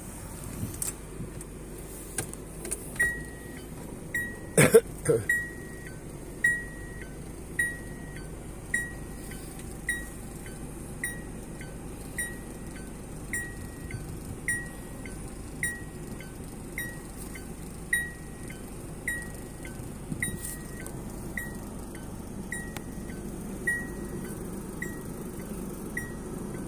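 A car's electronic warning chime beeping steadily, a short high tone followed at once by a lower one, a little under once a second, over the low hum of the stationary car. A few knocks from handling come in the first five seconds, the loudest about five seconds in.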